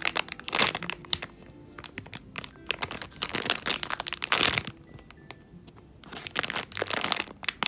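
Clear plastic packaging bag crinkling in three bouts as a foam squishy toy is squeezed through it, over quiet background music.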